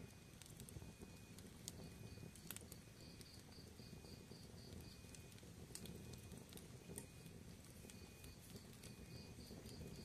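Wood fire burning in a fireplace, crackling faintly: sparse sharp pops over a low, steady rush of flames. A faint high chirping repeats evenly through it.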